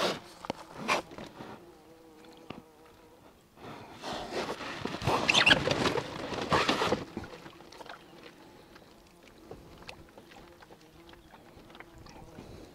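Wet gill net being hauled by hand over the side of an inflatable boat: water splashing and dripping off the mesh, loudest for a few seconds in the middle, with a couple of knocks in the first second.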